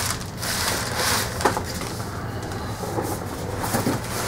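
Plastic bubble wrap rustling and crinkling as it is pulled apart and a boxed figure is lifted out of a cardboard shipping box, busiest in the first second.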